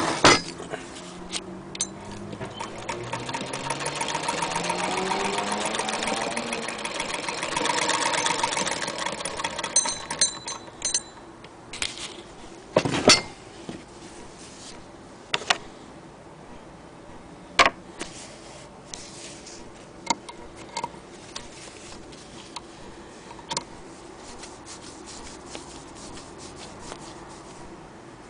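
Hand-cranked Singer Model 99K sewing machine running, its rapid needle-and-shuttle clatter speeding up over a few seconds, then slowing and stopping about ten seconds in. After that come a few scattered single clicks and knocks.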